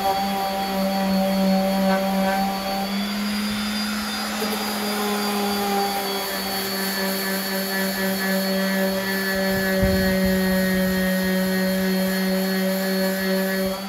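Electric random orbital sander running steadily as it sands a red oak panel, a continuous motor hum.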